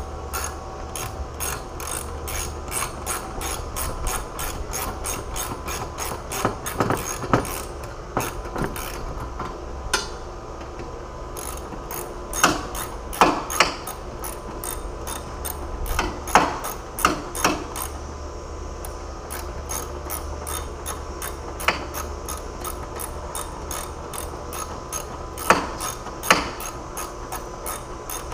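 Hand ratchet socket wrench turning a bolt, its pawl clicking in quick even runs, with a few louder knocks of the tool against metal.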